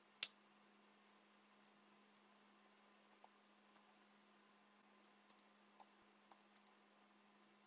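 A single click near the start, then scattered faint keystrokes on a computer keyboard over a low steady hum.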